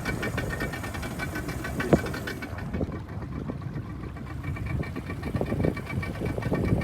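A small boat's engine running steadily at low speed, with a single thump about two seconds in.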